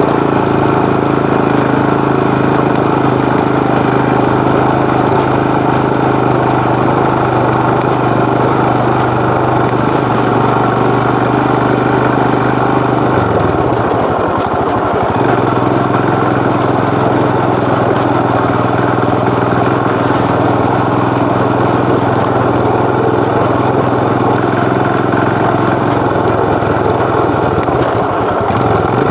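Royal Enfield Himalayan BS6's 411 cc single-cylinder engine running steadily under way, its exhaust note even, with a brief break in the low note about halfway through.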